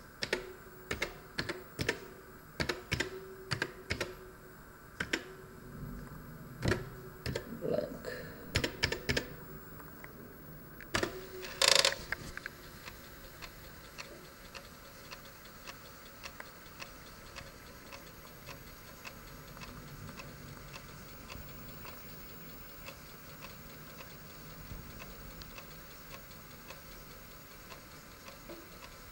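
Keys clicking irregularly on the Commodore SX-64's built-in keyboard as a disk format command is typed, ending in a louder clatter about twelve seconds in. After that comes faint, steady ticking over a low hum from the ALPS FDM2111 floppy drive formatting a disk, a sign that its worn spindle belt, repaired without a spare, now turns the disk.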